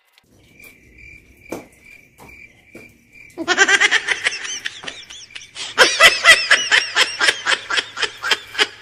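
Loud laughter in quick repeated bursts starts about three and a half seconds in and goes on to the end. Before it there is a faint chirping that repeats two or three times a second.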